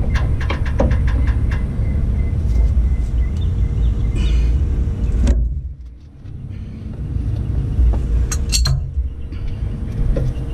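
Ratchet wrench clicking in a quick run of about seven clicks while undoing a fitting on a coolant filter line, followed by a few scattered metal clinks and knocks. All of it sits over a loud, steady low rumble that dips briefly about halfway through.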